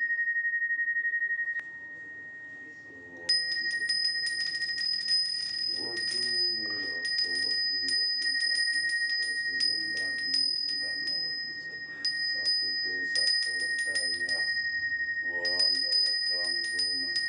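A Balinese priest's bajra (genta) hand bell is rung without pause, its clapper striking rapidly and its clear tone ringing on. About two seconds in it dies down to a faint hum, then picks up again loud about a second later. A man's voice chants over it.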